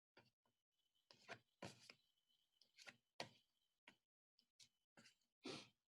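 Near silence broken by a few faint, short clicks of cardboard flashcards being flipped over one after another.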